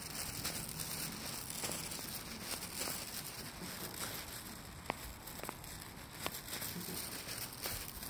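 Footsteps on stone paving with a constant rustling hiss, and a few sharp clicks in the second half.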